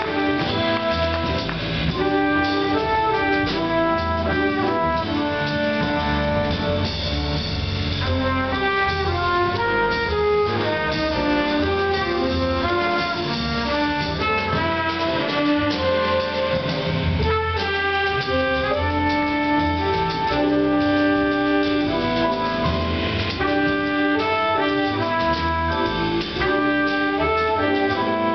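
Small jazz combo playing live: trumpet with alto and tenor saxophones leading over piano, guitar, upright bass and drum kit.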